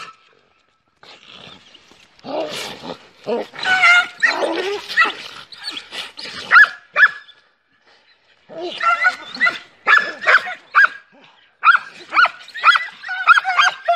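Several dogs in a scuffle, growling and barking, with short sharp cries. It is almost quiet for the first two seconds, then comes a burst of growls and barks, and after a brief pause near the middle a rapid run of short barks and yelps to the end.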